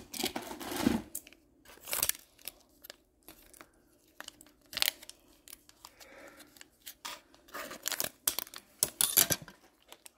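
A package being opened with scissors: scattered snips, tearing and crinkling of the packaging.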